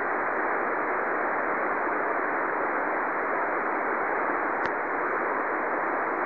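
Shortwave receiver tuned to the 40 m amateur band through a passive magnetic loop antenna, giving a steady, narrow hiss of band noise with no station audible. A faint click comes about two-thirds of the way through.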